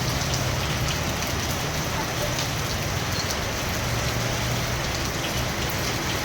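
Heavy rain falling steadily, an even hiss with scattered drops ticking on surfaces.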